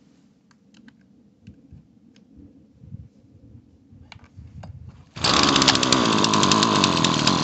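A few light clicks of handling, then about five seconds in a Dolmar P-34 two-stroke chainsaw engine starts suddenly and runs loud and steady with its air cleaner housing off. Its Zama C1Q carburetor is metering too much fuel, flooding the engine and wetting the spark plug.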